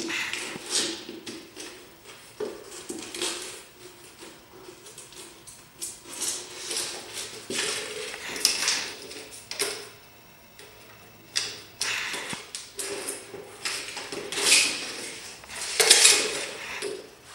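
Empty plastic peanut butter jar clattering and scraping on a concrete floor as a malamute puppy paws, pushes and mouths it. The clatters come in irregular bursts, with the loudest near the end.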